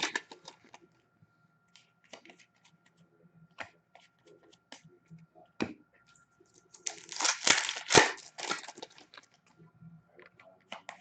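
Hockey card pack wrappers being torn open and crinkled, with scattered small clicks and rustles of cards being handled; a longer burst of tearing and crinkling comes about seven seconds in.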